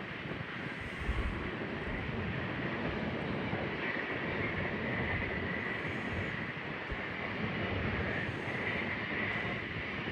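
Grain hopper cars of a freight train rolling past, a steady rumble of wheels on rail.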